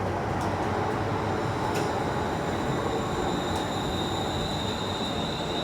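Class 360 electric multiple-unit train at the platform, a steady rumble with a high, even whine that comes in about two seconds in and grows stronger, and a few light clicks.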